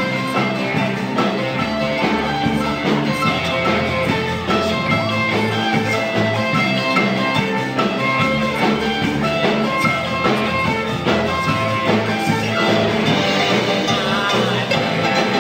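Live rock band music in an instrumental passage, guitar over a drum kit, with no singing.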